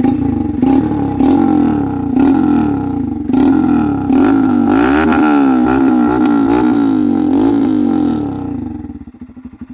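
Honda Titan motorcycle's single-cylinder four-stroke engine revved again and again through a homemade PVC pipe exhaust with its outlet piece removed, a loud racket rising and falling in pitch. The revving dies down near the end.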